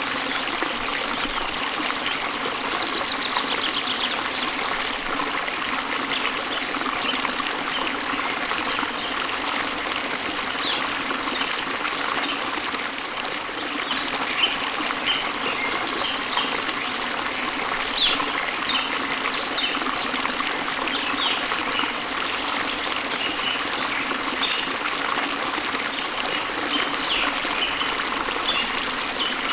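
Waterfall water running in a steady rush, with short high bird chirps scattered through it, more of them in the second half.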